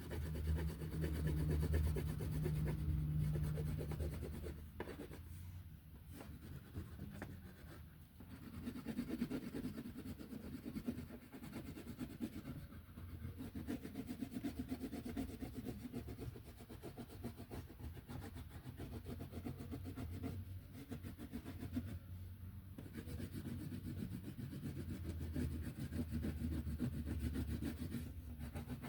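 Colouring strokes rubbing back and forth on paper, a steady scratchy sound with a few short pauses as the colour is laid over the leaves to darken them.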